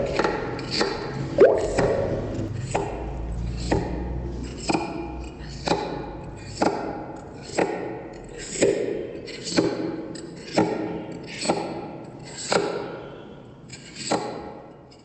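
A series of knocks, about one a second, each with a short ring after it, growing fainter toward the end.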